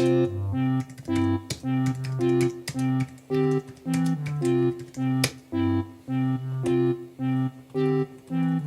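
Background music, a keyboard or organ-like melody in a steady rhythm, with sharp key clicks scattered over it from typing on a Buffalo BSTK11WH USB numeric keypad.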